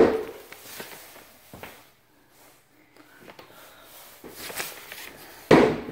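A closet door pulled open with a sharp knock, followed by faint handling noise in a small, empty room and another short, loud rush of noise near the end.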